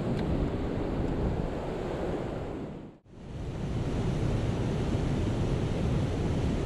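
Steady rush of water pouring over a low-head dam's spillway, mixed with wind on the microphone. The sound drops out for a moment about three seconds in, then comes back the same.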